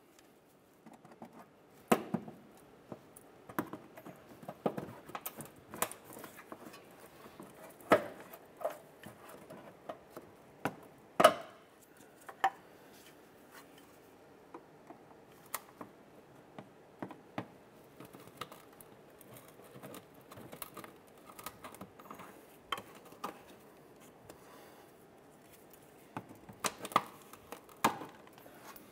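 Plastic push-pin retainers being pried out of a plastic inner fender liner with a trim tool: scattered clicks, snaps and knocks, with a few louder ones near the start, around the middle and near the end.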